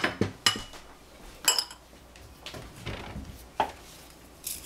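A few sharp, irregularly spaced clinks of kitchen utensils against crockery, the loudest in the first second and a half, with fainter ones after and a rustle near the end.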